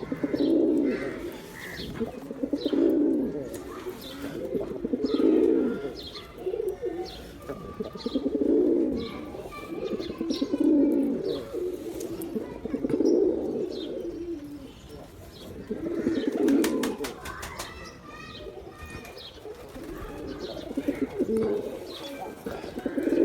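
Male pigeons cooing: deep, repeated coos every two to three seconds, with a short pause about two-thirds of the way through.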